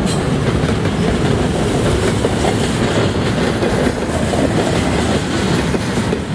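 Double-stack container well cars of a freight train rolling past at speed: a steady rumble of steel wheels on the rails.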